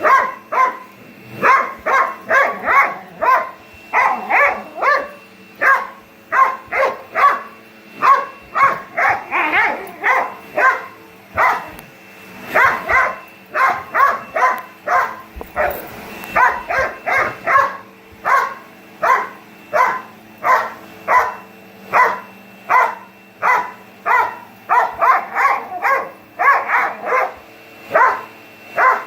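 Dog barking over and over, about two barks a second, over the steady hum of a running vacuum cleaner.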